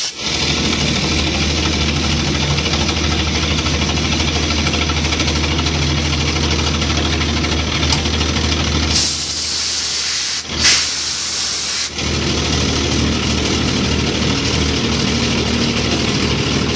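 Shop Master Patriot CNC mill running, its spindle and end mill cutting with a steady hum. About halfway through, a loud hiss from the mist-coolant spray nozzle comes on for about three seconds, with a short break in it.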